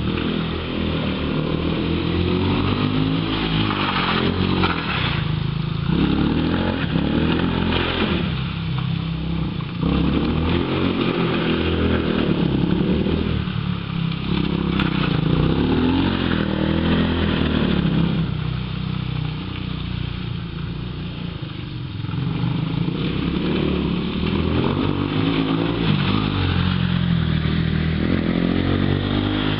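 Small ATV buggy's engine revving up and dropping back again and again as it accelerates and lifts off through laps of a wet track. It is quieter for a few seconds in the middle and louder again near the end.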